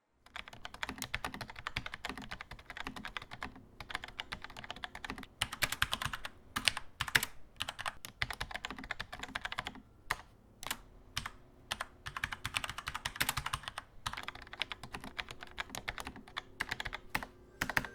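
Typing on a Steelseries Apex M800 keyboard with low-profile QS1 linear mechanical switches. Quick runs of soft key strokes with no click, and short pauses between the runs. The switches are very quiet for mechanical switches.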